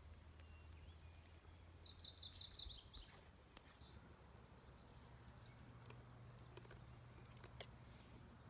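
Near silence, broken by a bird's short, rapid trill of high notes about two seconds in, and a few faint clicks.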